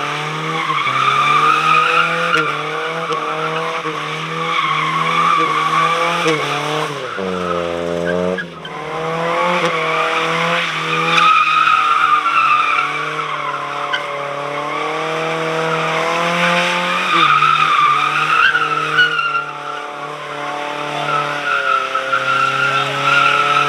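A vehicle engine held at high revs while its tyres squeal, as in a burnout. The engine note sags and recovers several times, most clearly about seven to eight seconds in.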